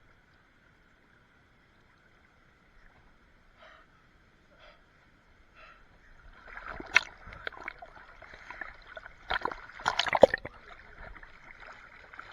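Water splashing and sloshing as someone wades through a stream pool, loudest with sharp splashes about seven and ten seconds in, over a steady rush of flowing water.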